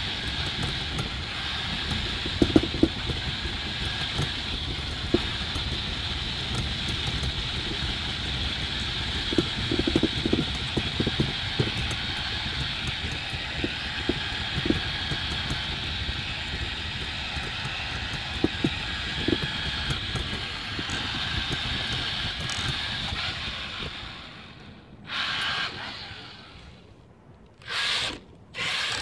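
Small towed cart rolling over paving tiles behind a radio-controlled vehicle built from a portable gas stove: a steady rolling rumble with small knocks, over a high steady whine from the drive. The run stops about three-quarters of the way through, and the drive then sounds in a few short bursts near the end.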